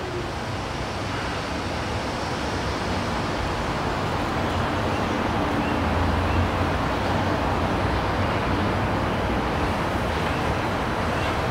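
Steady outdoor background rumble with no distinct events, swelling to a low hum about halfway through and easing off again.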